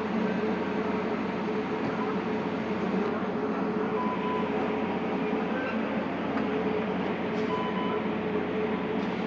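Caltrain diesel-electric locomotive and train running steadily, a continuous even hum with no wheel clatter.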